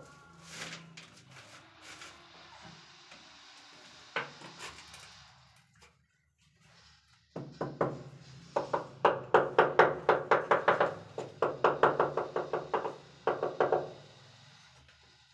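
Ceramic wall tile being tapped into its bed of adhesive: a fast run of sharp knocks, about five a second, starting about halfway through with a short break, after a few single knocks earlier.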